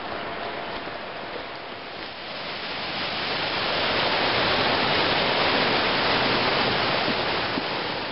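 Rushing white-water mountain creek, a steady roar of water. It swells louder about three seconds in, holds, then eases off near the end.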